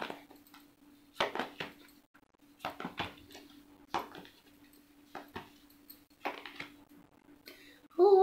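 Tarot cards being shuffled and handled: a series of short papery snaps and flicks, a few to a second apart, over a faint steady hum. Near the end a woman's voice comes in loudly with a drawn-out falling note.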